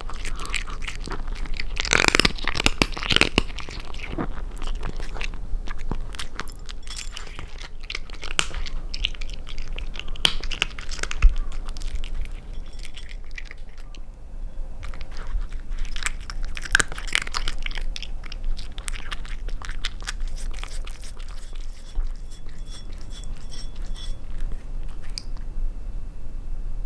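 A kitten chewing and crunching dry cat food, a dense run of small quick crunches.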